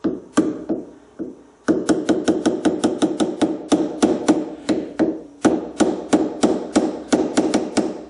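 Hammer tapping a small, soft chisel to cut away aluminium, each blow a sharp ringing strike. A few spaced taps come first, then quick runs of about four taps a second, with a brief pause past the middle.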